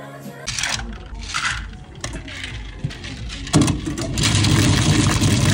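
Two short rattles, then an electric motor appliance runs loudly and steadily for about three seconds, starting a little past halfway through.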